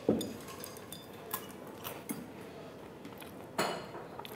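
Chopsticks clinking against small porcelain dishes as food is picked up: a few light clicks, with two louder clinks, one right at the start and one near the end.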